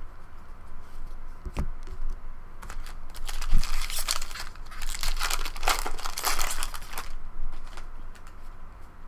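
Foil wrapper of a baseball card pack being torn open and crinkled, a dense crackly rustle that starts about three seconds in and stops about two seconds before the end, with a couple of low thumps of handling before it.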